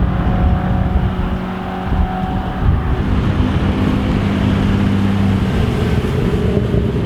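Car engines running at a steady pitch, the tone shifting about three seconds in and again near five and a half seconds, over a low rumble.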